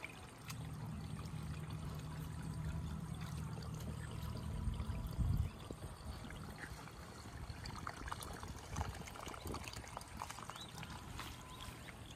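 Water trickling and splashing lightly. A steady low rumble runs under it for the first five seconds or so, and then gives way to scattered light clicks and rustles.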